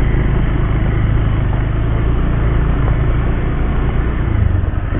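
Bajaj Pulsar 150 motorcycle's single-cylinder engine running steadily as the bike is ridden over a rough dirt track, heard as a continuous rumble.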